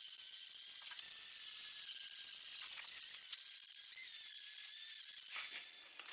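Drill spinning a 3000-grit wet-sanding pad against a plastic headlight lens: a steady high hiss with a faint motor whine, stopping near the end.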